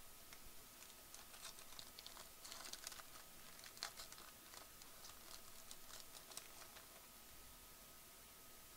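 Faint crinkling and ticking of a foil trading-card pack wrapper being torn open and the cards slid out, a quick run of small crackles through the middle few seconds.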